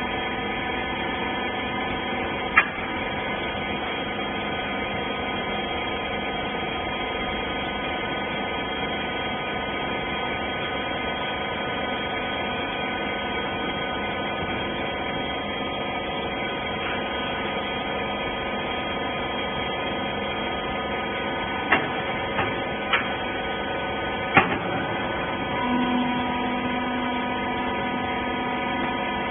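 Hydraulic rag baler running with a steady hum made of several fixed tones. There is a single sharp knock a few seconds in and a quick cluster of four clicks or knocks in the last third, and a lower drone joins near the end.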